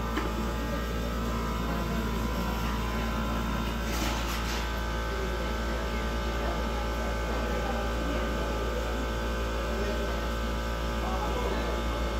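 Steady low hum and roar of a glassblowing studio's furnace burners and blowers. There are faint background voices and a few light clicks about four seconds in.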